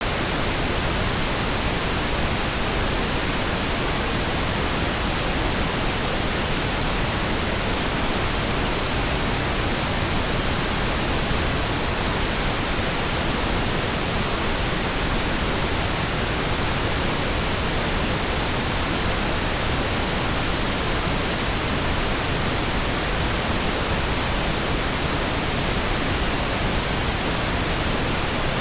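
Steady synthetic pink noise: an even, smooth hiss spread across the whole range, with no changes or breaks.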